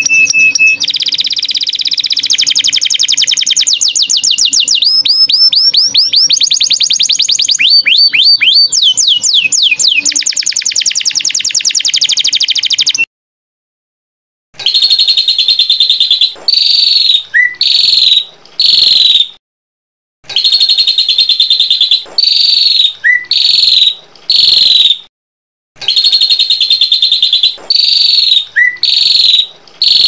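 Recorded songbird sounds from small caged birds. First comes a continuous, rapid, high trilling song that cuts off suddenly. After a short pause come loud, repeated high whistled chirps in groups of a few notes, with brief gaps between the groups.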